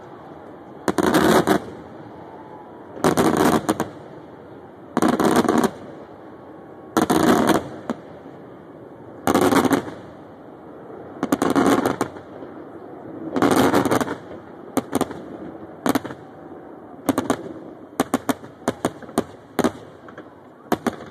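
Aerial fireworks shells bursting: a loud crackling burst about every two seconds, each under a second long, then from about two-thirds of the way in, a quicker run of short sharp cracks and bangs.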